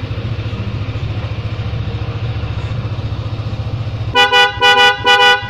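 Bajaj Pulsar motorcycle engine idling steadily. About four seconds in, three short, loud horn toots in quick succession.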